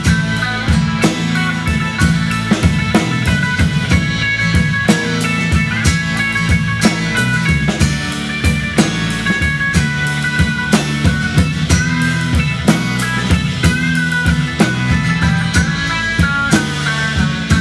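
Live country band playing an instrumental break: an electric guitar takes the lead over drums with a steady beat, bass and strummed acoustic guitar.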